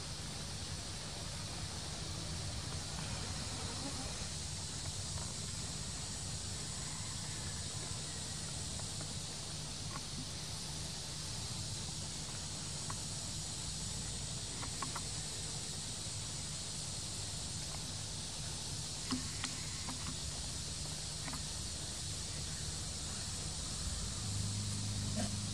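Outdoor forest ambience: insects keep up a steady high-pitched buzz over a low hum, with a few faint clicks. Near the end a steadier low hum comes in.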